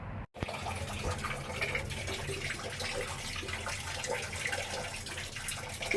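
Water running and splashing in a sewage pit, with scattered small splashes over a steady low hum.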